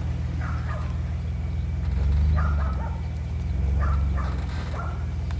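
Pickup truck engine running at low revs, swelling twice as it takes up the load of a tree limb chained behind it. A few short, high chirps sound over it.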